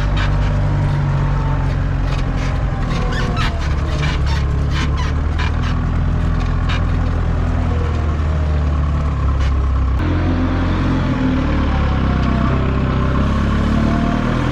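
Farm machine's diesel engine running steadily, its note shifting a couple of times, with a run of clicks and knocks over the first seven seconds or so.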